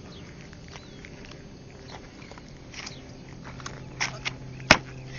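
Hands and feet striking a dirt road during a one-handed handstand trick: a few sharp knocks and scuffs, the loudest near the end.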